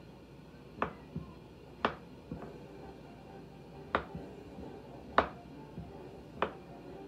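Kitchen knife slicing strawberries on a wooden cutting board, the blade knocking on the board in sharp single strokes at an uneven pace, about seven in all.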